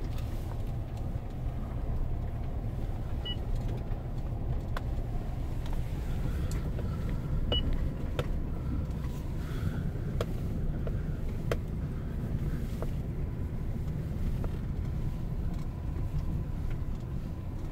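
Car driving slowly, heard from inside the cabin: a steady low rumble of engine and tyre noise, with a few faint scattered ticks.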